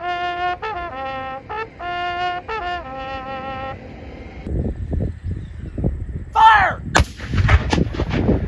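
A bugle call of a few held notes, then artillery fire: a series of cannon booms with a falling whistle and a sharp crack about seven seconds in, the loudest moment.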